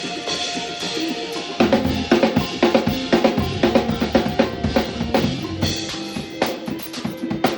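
Live band music: a sustained chord from a pitched instrument, then a drum kit comes in about a second and a half in with bass drum and snare hits over the band.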